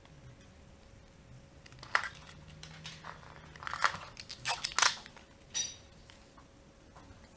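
Paper crinkling and rustling as a rolled paper tube and a pleated paper end cap are handled and pressed together, with a sharp click about two seconds in and a run of louder crackles a little later.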